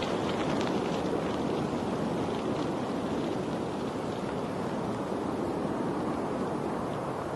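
Steady rushing of running water, with faint light splashes in the first few seconds.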